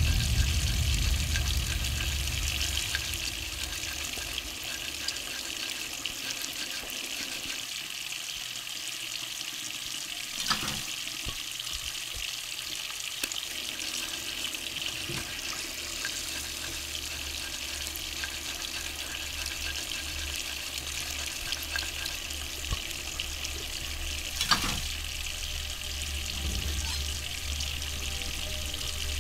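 Kitchen tap running steadily into a sink while a knife is scrubbed with a cloth under the stream, with two sharp clicks about ten and twenty-five seconds in.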